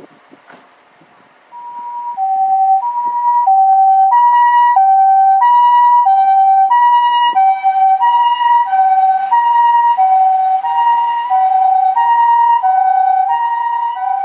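Osaka Siren Mark-10 electronic siren on an ambulance, sounding the Japanese two-tone 'pee-poh' pattern. A high note and a low note alternate, each lasting about 0.6 s. It starts about a second and a half in and eases slightly near the end as the ambulance drives away.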